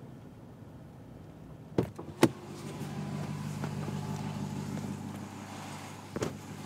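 Ram TRX's 6.2-litre supercharged V8 idling steadily. The door latch clicks twice about two seconds in as the door opens, and the idle then comes through louder; a short knock follows about six seconds in.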